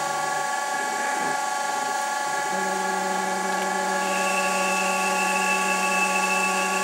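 Denford Orac CNC lathe running at 800 rpm with a small boring bar taking a slow cut in an EN16T steel cylinder: a steady mechanical whine made of several held tones, with a lower hum joining about two and a half seconds in and a higher whine added about four seconds in.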